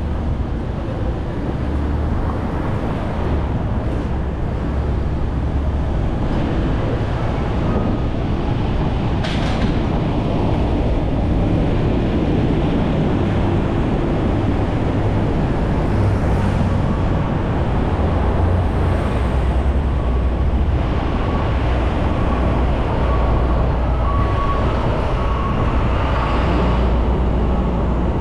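A car being driven, with a steady low rumble of engine and tyre noise. There is a single brief click about nine seconds in.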